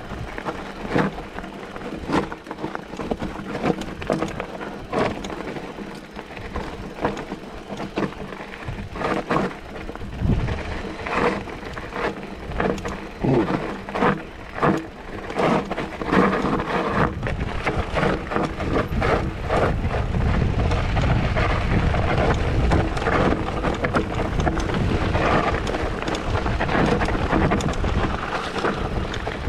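Mountain bike descending a steep, loose rocky trail: tyres crunching over gravel and stones, with frequent clatters and knocks from the bike over the rough ground. A low rumble of wind on the microphone grows heavier from about halfway on.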